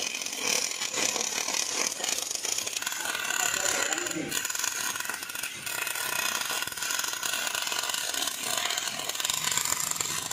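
Stick (shielded metal arc) welding arc crackling and sizzling steadily as an electrode burns a bead along a steel channel.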